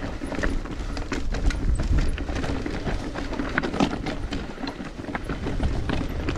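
Mountain bike rattling and clattering as its tyres run over a rough trail at speed: a quick, irregular stream of clicks and knocks over a constant low rumble.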